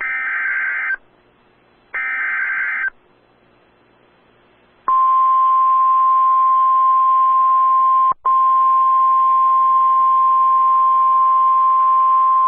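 NOAA Weather Radio EAS alert: two one-second bursts of the warbling SAME digital header, a second apart, then about five seconds in the loud, steady, single-pitch weather radio warning alarm tone starts over radio hiss, with a brief dropout about eight seconds in. The header and the alarm tone mark the activation of a severe thunderstorm warning.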